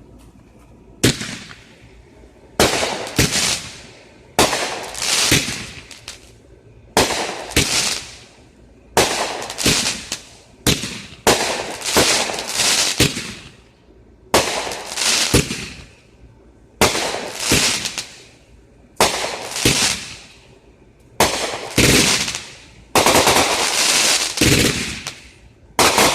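A 20-shot Dominator 'SWAT Team' firework cake firing its shots one after another. The shots come about every one to two seconds, often in pairs, and each sharp bang trails off over about a second.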